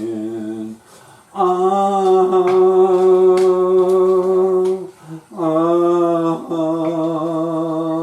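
A lone voice singing long, wordless held notes with a slight waver: one note ends about a second in, then two long notes follow with a brief break between them.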